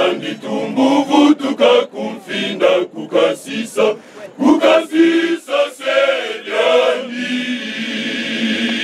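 Men's choir singing in short, chanted phrases, then holding one long chord near the end.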